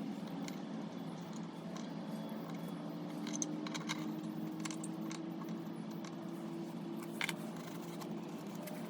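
Small tool clicks and light scraping as old, gummed-up diaphragm rubber is picked out of a Bing carburettor slide assembly, over a steady low hum. A cluster of clicks comes about three to four seconds in and another short one near seven seconds.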